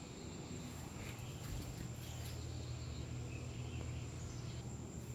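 Quiet outdoor background noise: a steady low hum with a thin, constant high-pitched whine over it.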